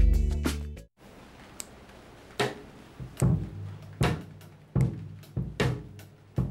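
A short music sting cuts off about a second in. Then a drum kit is struck with single, unevenly spaced hits, one or two a second.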